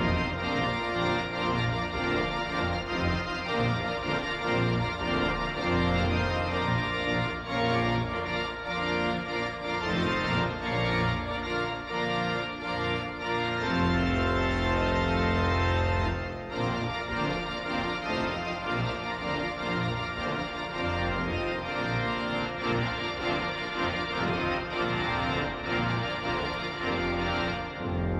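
Pipe organ playing held chords over a deep pedal bass.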